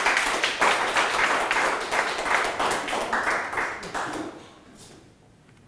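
Audience applauding: a room full of people clapping, which fades and dies away about four to five seconds in.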